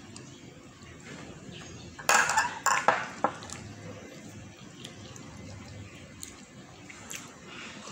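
Tableware clattering: a quick cluster of several sharp, clinking knocks about two seconds in, the loudest sound here, with only quiet room sound around it.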